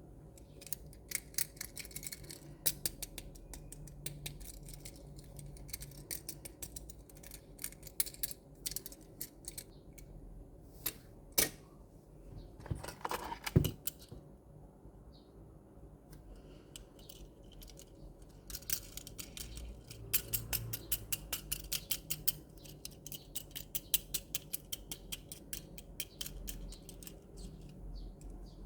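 Small die-cast and plastic toy construction trucks being handled, with quick runs of clicking and rattling. About halfway through there is a louder click, then a brief scrape.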